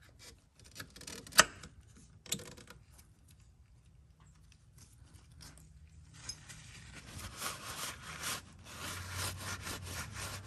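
Billet aluminium transmission-mount insert being pushed into the rubber mount by a gloved hand: a few light knocks and one sharp click about a second and a half in. From about six seconds in comes a long stretch of rubbing and scraping.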